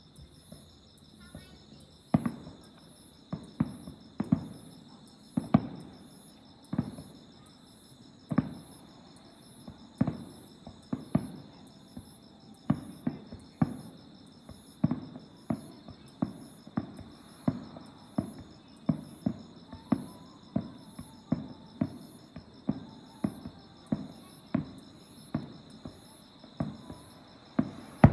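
Aerial fireworks shells bursting in a quick, irregular run of bangs, about one to two a second and each with a short echo, starting about two seconds in. Insects chirp steadily underneath in a fast pulsing rhythm.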